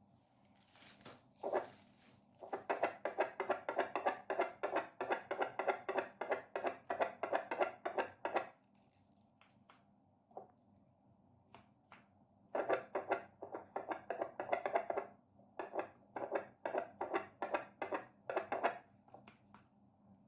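A Nidek handheld fetal Doppler's loudspeaker gives a fast, rhythmic pulsing whoosh of a heartbeat signal, about four pulses a second. It comes in two long stretches, with scattered clicks and scrapes between them and a short hiss near the start.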